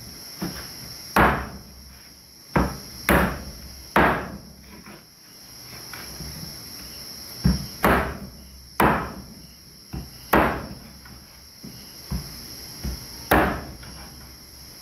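Large kitchen knife chopping raw chicken on a wooden cutting board: about a dozen sharp chops in irregular bunches with short pauses between. A steady chorus of insects chirps behind them.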